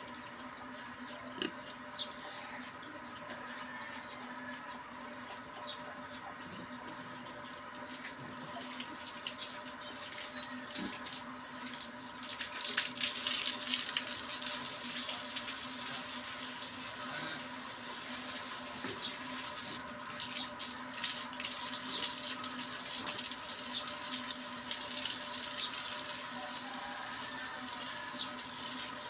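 Water from a garden hose spraying onto a concrete pig-pen floor and the pigs, a hissing splash that starts partway through and keeps going, over a steady low hum.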